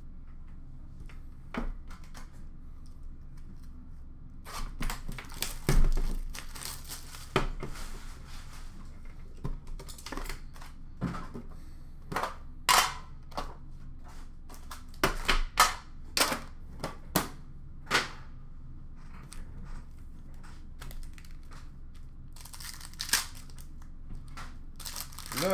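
Foil trading-card pack wrappers being torn open and crinkled, in a run of short sharp crackles and tears starting about four seconds in, over a low steady room hum.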